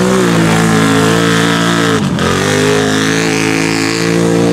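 Off-road vehicle engine running hard at high revs through mud. About halfway through, the revs drop sharply and climb straight back up.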